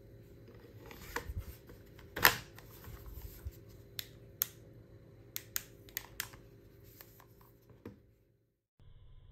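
Sharp plastic clicks and snaps from handling a Powertech ST3218 LED worklight: the loudest snap comes about two seconds in, followed by a string of separate clicks as the battery cover is refitted and the light's switch is pressed.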